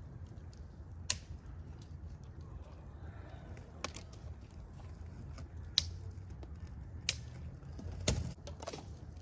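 Wood fire burning with a low steady rumble, broken by five sharp crackling pops; the one near the end is the loudest and longest.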